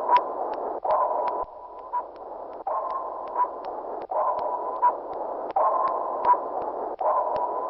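Submarine sonar sound effect: a steady tone, held over hiss, that restarts about every second and a half, with short sharp clicks scattered through it.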